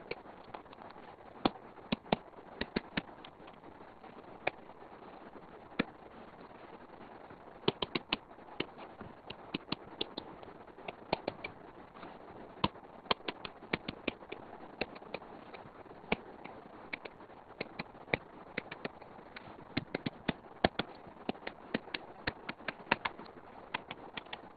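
Stylus tip tapping and clicking on a tablet's glass screen during handwriting: short, sharp clicks in irregular runs over a faint steady hiss.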